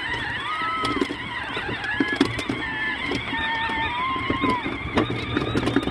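A small four-wheeler running as it tows a wagon through shallow puddles, with a wavering high whine that holds and shifts pitch over a steady low hum. Scattered knocks and splashes come from the wheels rolling through water and mud.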